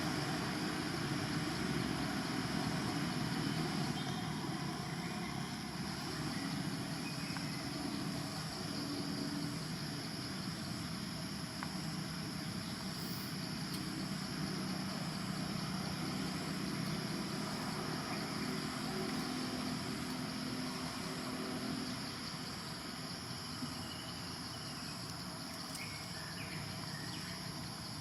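Steady outdoor background: a low continuous rumble with a constant high-pitched insect drone over it.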